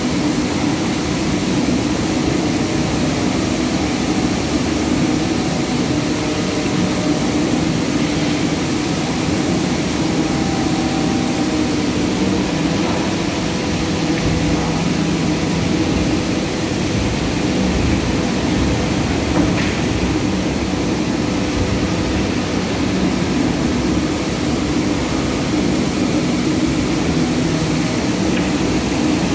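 Palm oil mill machinery running: a steady, unbroken mechanical din with a constant low hum.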